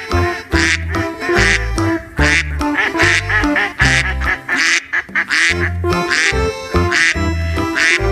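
Upbeat background music with a steady bass beat, and a duck quacking over it again and again in short calls.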